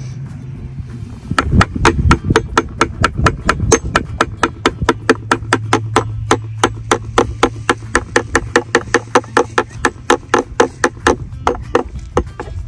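Hammer tapping steadily and rapidly, about four blows a second, knocking a plastic jump-standard leg onto its base. The tapping starts about a second in.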